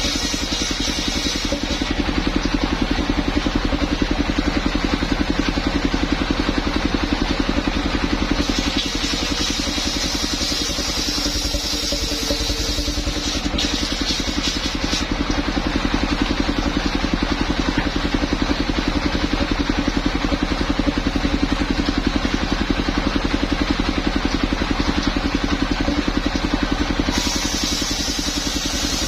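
Engine of a mobile circular sawmill running steadily with a fast, even throb; a brighter, hissing sound comes in for a few seconds at a time.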